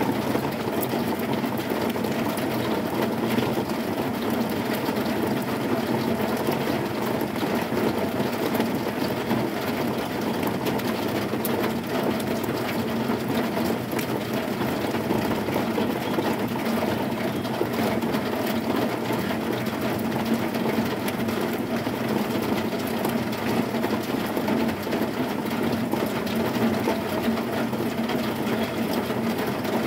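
Heavy rain falling on a zinc sheet roof: a steady, dense patter of many small impacts, with no thunder.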